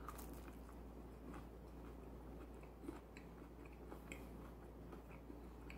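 Faint chewing of a breaded fried chicken strip, with scattered small crunching clicks.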